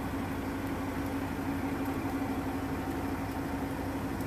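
Diesel semi-truck engine idling, a steady, even hum with a constant low drone.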